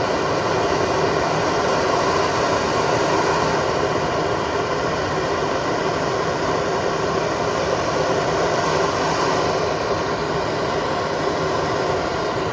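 Handheld soldering torch burning with a steady hiss, its flame heating a fluxed pipe coupling for soldering.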